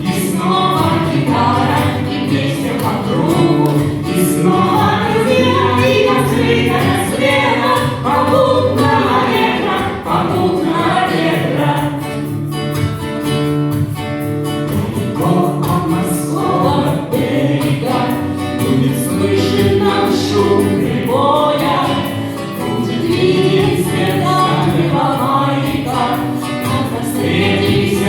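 A song sung by several voices together, like a choir, over instrumental accompaniment.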